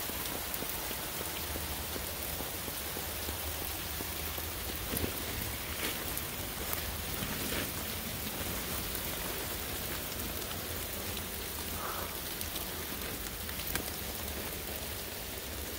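Heavy rain falling steadily, heard from beneath a rock overhang, with a few sharper drops landing close by now and then.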